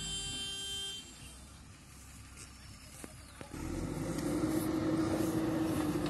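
A vehicle horn gives a steady blare for about a second. After a quieter stretch, the diesel engine of a JCB 3DX backhoe loader comes in loud about halfway and runs steadily as it works the soil.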